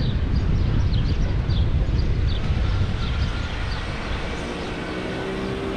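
Steady low rumble of wind on the microphone and road noise during a bicycle ride, with a series of short, high, falling chirps through the first few seconds. Music fades in near the end.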